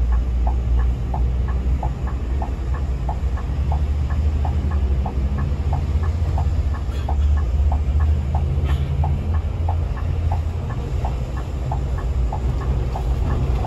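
Scania K360 coach's engine and road noise heard from inside the moving bus: a steady low rumble. A regular light ticking, about three ticks a second, runs through it.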